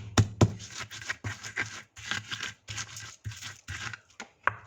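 Chili, candlenut and garlic being crushed and scraped with a pestle in a stone mortar (cobek and ulekan): a quick run of short, rough scraping strokes, several a second, which stops suddenly at the end.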